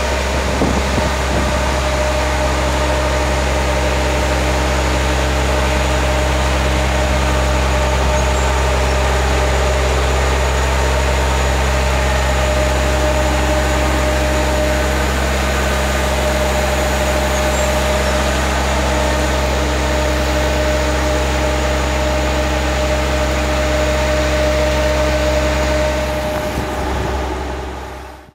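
Tractor engine running at a steady speed while pulling a cultivator toolbar, a constant drone with a low hum. It fades out near the end.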